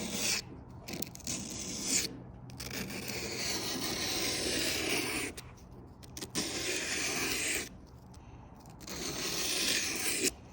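Plumber's emery cloth (fine aluminium-oxide sanding tape) rubbed along the edge of a Tesla Cybertruck's stainless-steel body panel in about five long scraping strokes with short pauses between them, smoothing off the rough edge.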